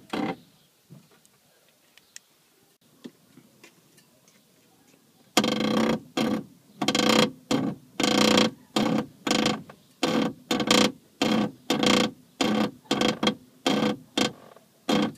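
A 2001 Vauxhall Corsa 1.0's steering making a horrible, repeated creaking groan as the wheel is turned back and forth while the car is stationary, a fault that a replaced steering rack has not cured. After about five seconds of near quiet with a few faint clicks, the groans come regularly, about two a second.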